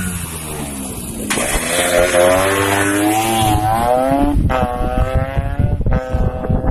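Tuned Vespa scooter engine revving hard, its pitch climbing in repeated rises that start sharply a little over a second in and drop back and climb again twice near the end.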